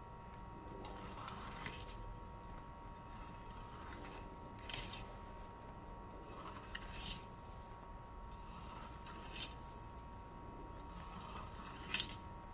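A rake scraping and dragging over dry grass and dirt in short strokes, about five over twelve seconds, the last one the loudest.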